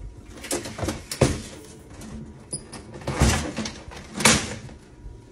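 Handling noise as items are moved and set down: a series of sharp knocks and thuds with some rustling between them, the loudest just over a second in, about three seconds in and just past four seconds.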